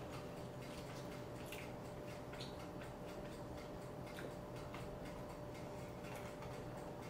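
A person drinking an iced drink from a glass mug: a few faint, scattered clicks and gulping sounds over a steady low room hum.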